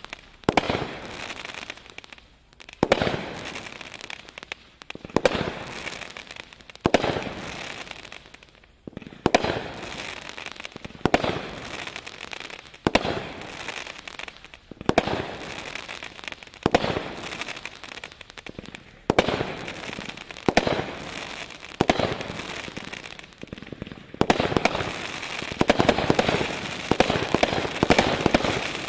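A consumer 25-shot aerial firework cake firing shot after shot, about one every two seconds. Each shot is a sharp launch report followed by the burst and its fading tail. Near the end the shots come faster and overlap.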